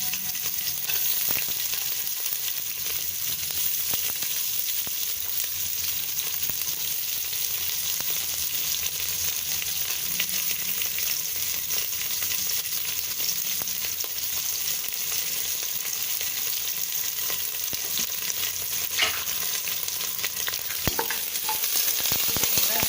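Onions frying in hot oil and ghee in a pressure cooker: a steady sizzle, with a few knocks near the end.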